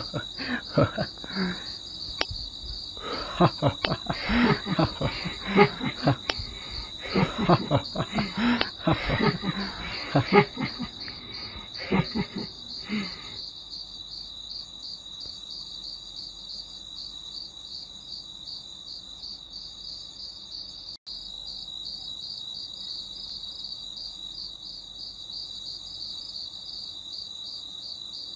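Crickets chirping in a rapid, even pulsing trill, a night-time ambience, with voices over it for roughly the first half and then the crickets alone; the sound breaks off for an instant about two-thirds of the way through.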